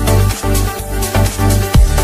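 Electronic dance music with a steady beat and sustained bass notes.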